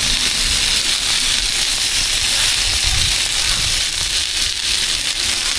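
Food frying in hot oil, a steady sizzle.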